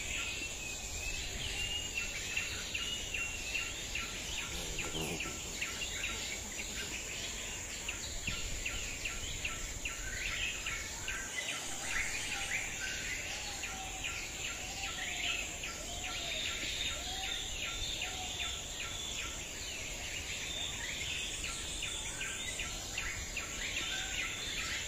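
Outdoor rural ambience: a steady high-pitched insect drone with many short bird chirps and calls throughout.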